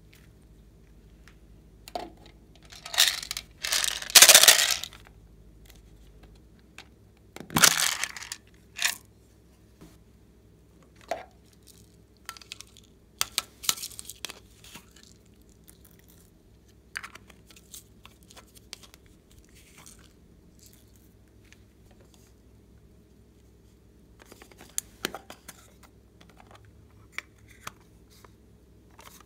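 Small hard-plastic toy containers being handled and opened: a series of short plastic clicks, scrapes and rustles, several seconds apart, the loudest about four seconds in.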